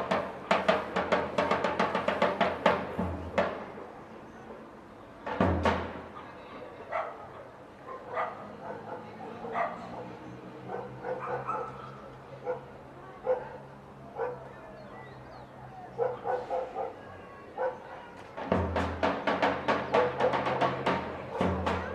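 A chinchinero's bass drum and cymbals play a fast, driving rhythm that stops about three seconds in. One more drum hit comes a couple of seconds later, and the playing resumes near the end. In the pause a dog barks several times.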